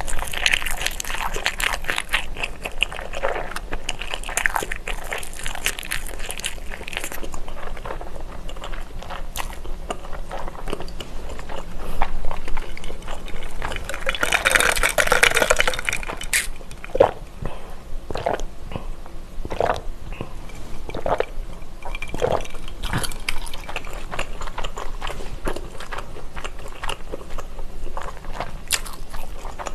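Close-miked chewing and wet mouth sounds of a person eating pork sausage. About halfway through comes a loud slurp of an iced drink sucked through a straw, then more scattered chewing clicks.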